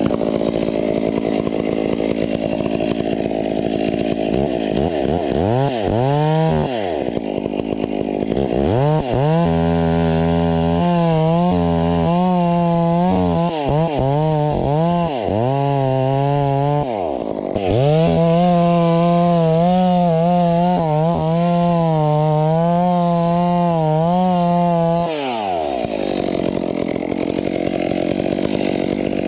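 Two-stroke chainsaw running hard as it cuts into a tree trunk. The engine note dips and recovers several times as the chain bites into the wood and is eased back.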